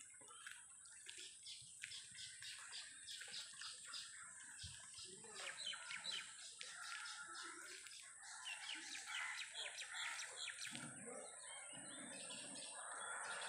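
Small birds chirping faintly, many quick repeated chirps, over a steady high-pitched tone.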